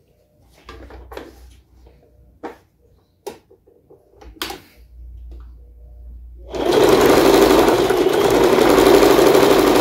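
A few light clicks and knocks as denim is positioned under the presser foot, then, about six and a half seconds in, an Elgin domestic sewing machine starts up and sews steadily through denim on its pattern-8 stitch. This test run sews without skipping a single stitch, the sign of a well-adjusted machine.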